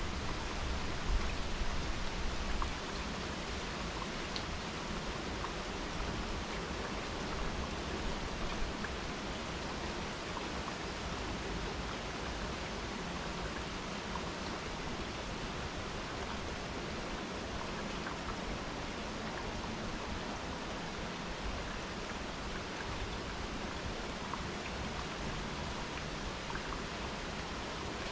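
Steady rain falling during a thunderstorm: an even hiss with scattered faint drop ticks. It is a little louder, with more low rumble, for the first couple of seconds.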